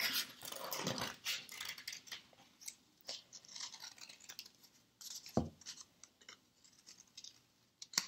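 Scissors cutting construction paper in short, faint snips, with one short thump about five seconds in.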